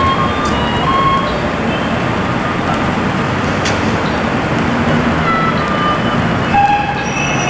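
Steady rushing background noise with a few short, faint high chirps.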